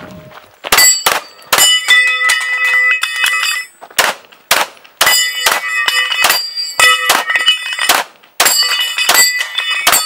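Rapid pistol shots at a steel Texas star target, each shot followed by the ringing of struck steel plates. The shots come in quick strings, with short breaks about four seconds in and again about eight seconds in.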